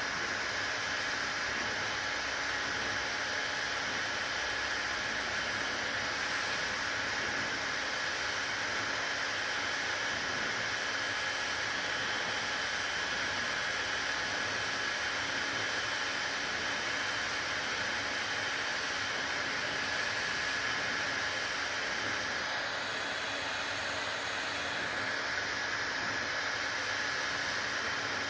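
A steady, unbroken hiss, strongest in the upper range, with a faint steady high tone running through it.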